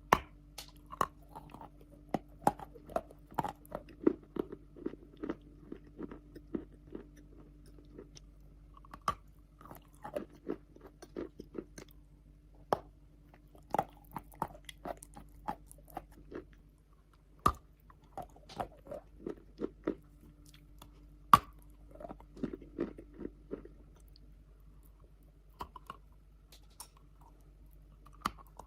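Close-miked biting and chewing of wet chalk: soft, sharp crunches come in quick clusters of chews separated by short pauses, with one especially loud crunch about two thirds of the way through. A faint steady hum runs underneath.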